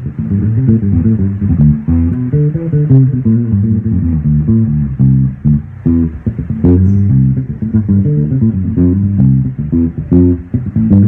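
Bass guitar played with plucked low notes, a continuous line of changing notes.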